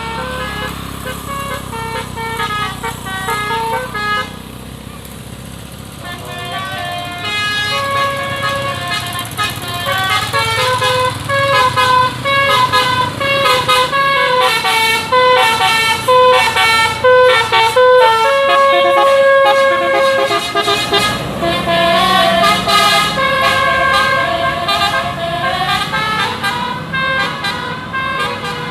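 A bus's multi-tone musical air horn ('telolet basuri') playing a quick tune of short stepped notes, louder after the first few seconds, over a low engine and traffic rumble.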